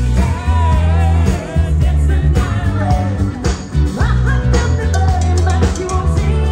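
Live band playing loud dance music through a PA, with a heavy bass line, a steady beat and a wavering lead voice or instrument.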